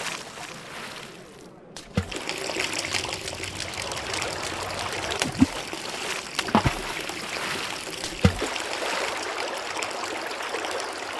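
Water gushing steadily, starting about two seconds in, with a few short plops along the way.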